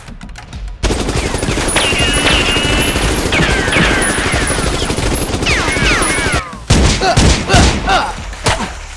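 Rapid automatic gunfire sound effects: a dense, continuous volley from about a second in to about six seconds, with falling whines over it, then a short pause and a few separate shots.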